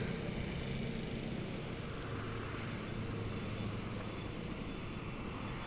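Steady low hum of distant road traffic, with no single vehicle standing out.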